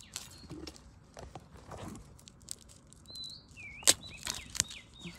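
Blade chopping through the base of a bamboo shoot in leaf litter: scattered knocks and crunches, with one sharp crack about four seconds in as the shoot comes free. A bird whistles several gliding notes over the last two seconds.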